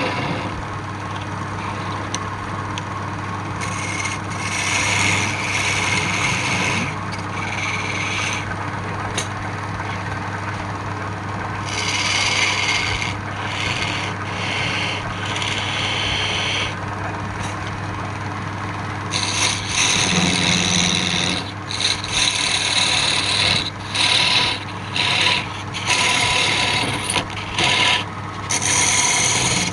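Wood lathe running with a steady hum while a tool is held against the spinning wood, giving a rasping hiss that comes and goes. In the last ten seconds the hiss comes in short strokes about once a second.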